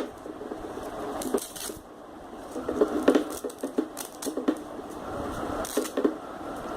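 Plastic clicks and light knocks of an HP laptop AC adapter and its cord being handled, irregular and scattered, over a steady background hiss.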